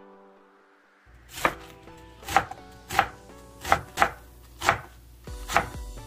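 Kitchen knife chopping through napa cabbage leaves onto a wooden cutting board: about seven sharp chops, roughly a second apart, starting a second or so in. Soft background music plays underneath.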